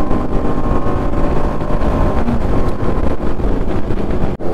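Motorcycle on the move: wind buffeting the rider's microphone over the BMW G310RR's single-cylinder engine running steadily. The sound cuts out for an instant near the end.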